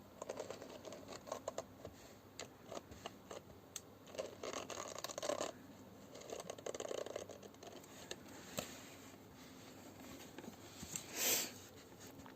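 Faint, irregular scratching and rustling with scattered small clicks and a few short swishes, the loudest a little before the end.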